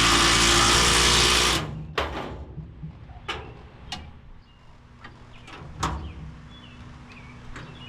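A power tool running in one loud, steady burst that stops about a second and a half in, followed by several sharp metal knocks and clinks from working on a seized nut.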